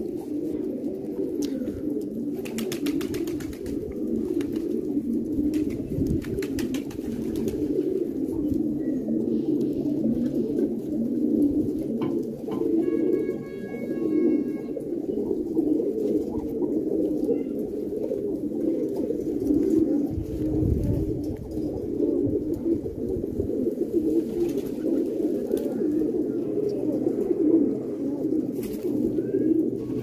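A flock of fancy domestic pigeons cooing, many birds overlapping into a steady, continuous low murmur of coos.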